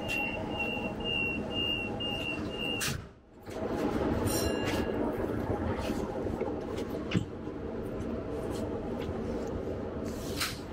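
Train door warning beeps, a steady high beep pulsing two to three times a second, which stop with a thud about three seconds in as the doors shut. Then the carriage's running noise rises as the electric train pulls away.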